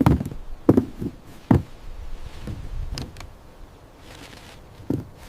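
Harvest crates being handled: five dull knocks and thumps at uneven intervals.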